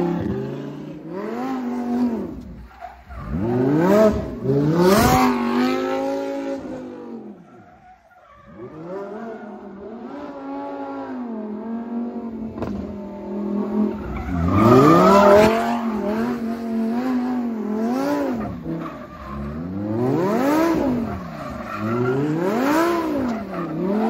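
Lamborghini Huracán V10 revving up and falling back over and over while the car drifts in circles, its rear tires squealing and smoking.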